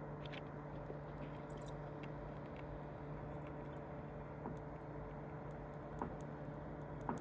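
Steady low electrical hum with faint, scattered small ticks and crackles, a couple slightly louder near the end.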